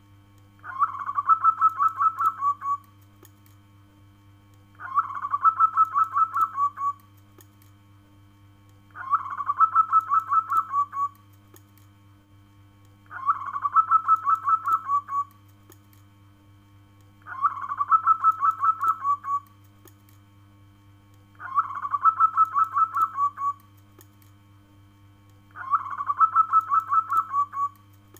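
Zebra dove (perkutut) cooing its song: seven calls, each a quick run of staccato cooing notes lasting about two seconds, repeated about every four seconds.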